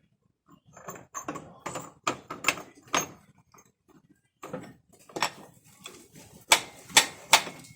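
Metal knocking and clanking as a new rear axle wheel bearing is worked into place, ending in three loud, ringing metal strikes about half a second apart.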